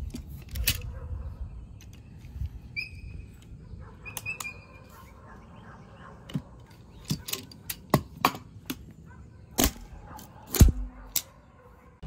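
Manual strapping tools working a polyester strap: a hand tensioner tightening the strap, then a hand sealer crimping a metal seal onto it. The sound is a run of sharp clicks and metallic clacks, with the loudest snaps coming thick in the last few seconds.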